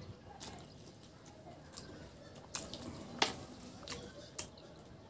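Close-miked eating of pork curry and rice: wet chewing with a handful of sharp mouth smacks and clicks, mostly in the second half, along with soft squishing as fingers work through the curry-soaked rice.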